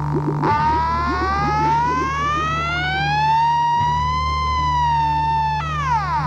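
Magnetometer's audio signal: over its steady low drone, a high screech with several overtones starts about half a second in, rises slowly for several seconds, then drops sharply near the end. The screech is the sign of a hit, metal detected under the coral.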